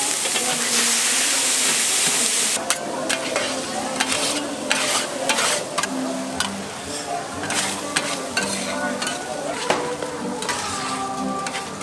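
Noodles stir-fried on a flat steel griddle. A loud sizzling hiss fills the first two and a half seconds and cuts off sharply. After that come repeated scrapes and clacks of metal spatulas on the griddle as the noodles are tossed.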